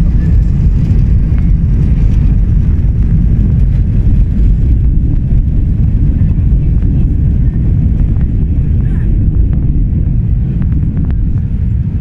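Steady, loud, low rumble inside an Airbus A320 cabin: engine and airframe noise as the airliner rolls after landing. It eases slightly near the end.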